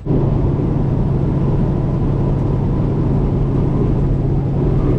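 Semi truck engine drone with road noise, heard from inside the cab while driving at speed. It is a steady, loud, low hum that holds unchanged, starting abruptly.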